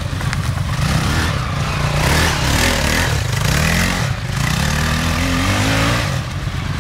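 Quad ATV engine revving under load, its pitch dipping and rising. It climbs steadily for a second or two in the second half, then drops back near the end.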